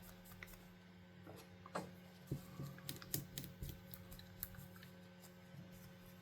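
Faint scattered clicks and light taps of small plastic controller parts being handled during cleaning, most of them in a cluster about two to four seconds in, over a steady low electrical hum.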